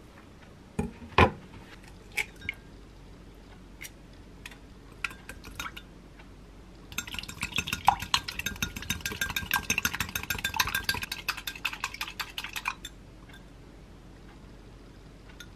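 A fork beating an egg in a glass bowl: fast, continuous clinking of metal on glass for about six seconds from about halfway through. Before it, a few separate knocks and taps, the loudest about a second in.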